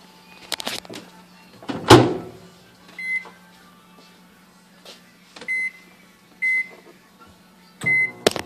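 Microwave oven door shut with a loud clunk about two seconds in, then four short keypad beeps spaced a second or two apart as the cooking time is entered, and a sharp click near the end.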